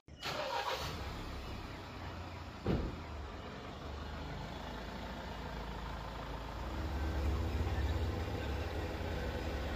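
Mahindra Thar's engine running with a low steady rumble, a single sharp knock about three seconds in, and the engine a little louder for a couple of seconds in the second half.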